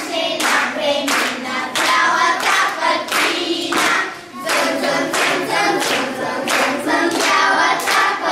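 A group of children singing a Bulgarian Christmas song about little bells together, with hands clapping along on the beat about twice a second.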